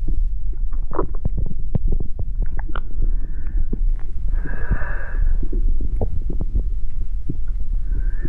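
Internal body sounds: a continuous low rumble with many scattered clicks, and short hissing passages about three seconds in, around four to five seconds, and again near the end.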